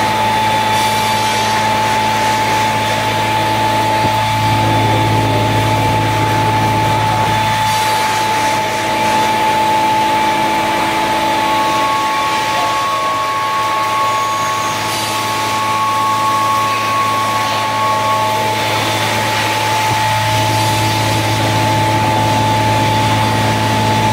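CNC router running: a steady machine hum with a constant high-pitched whine. A second, higher whine comes in for several seconds around the middle, then stops.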